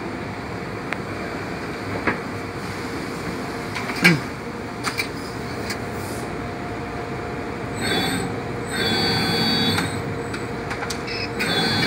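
Servo motors of an EKO full-electric CNC press brake whining in three short runs in the second half, the longest about a second and a half, as the machine moves through a bend cycle, over a steady background hum. A sharp knock about four seconds in.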